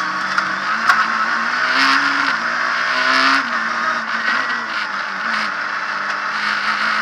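Abarth Punto S2000 rally car's two-litre four-cylinder engine at speed, heard from inside the cabin, its revs climbing and dropping several times through the gears over road and drivetrain clatter. A sharp click comes about a second in.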